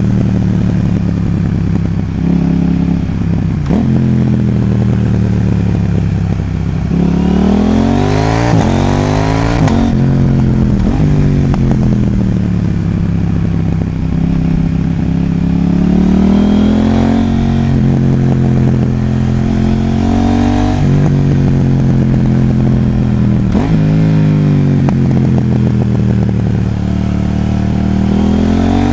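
KTM 790 Duke's parallel-twin engine, fitted with a Sprint Filter P08 air filter, running under way on the road. Its pitch climbs and falls several times as the rider accelerates, shifts gear and rolls off.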